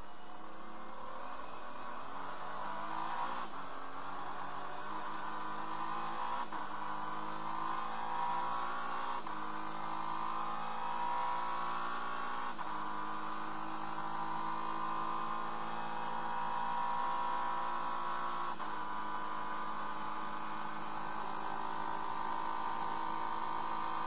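Acura NSX GT3 race car's twin-turbo V6, heard from inside the cockpit under power. The engine note climbs and steps down sharply with each of about five gear changes, then holds high.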